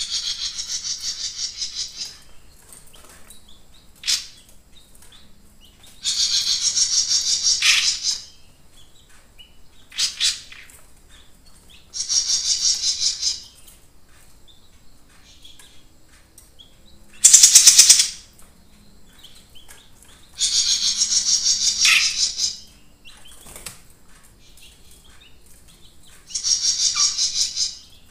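Caged jenggot mini songbird singing: high, fast-trilled bursts of one to two seconds, repeated about every five or six seconds, with single short sharp notes in between. One burst a little past halfway is louder than the rest.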